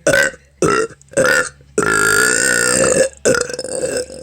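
A person burping deliberately, over and over: three short burps in quick succession, then one long, drawn-out burp lasting over a second, then another shorter one near the end.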